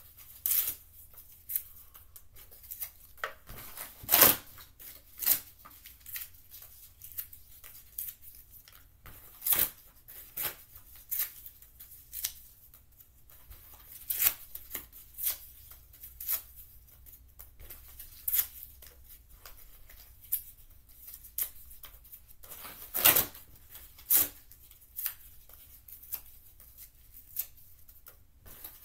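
Irregular light clicks and rustles of small paper scraps being handled and dropped into the plastic tipper body of a Bruder MAN TGA toy dump truck, with a few louder knocks now and then.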